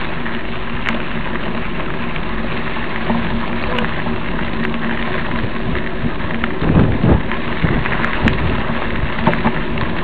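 Steady crackling rustle of dry grass brushing against a hand-held camera as it moves through it, with a few low bumps about seven seconds in.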